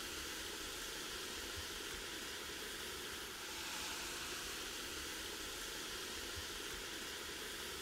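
Liquid nitrogen pouring from a stainless steel flask into a glass beaker of fruitcake and boiling off against it, a steady faint hiss.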